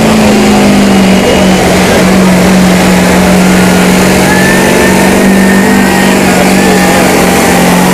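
Diesel pickup truck engine running hard at high, nearly steady revs while dragging a weighted pulling sled. The pitch settles slightly about a second in and then holds, and a faint high whistle sits over the engine through the middle of the pull.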